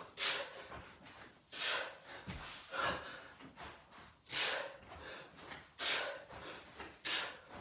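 A man breathing out hard in rhythm with bicycle crunches, one sharp breathy exhalation about every second and a half.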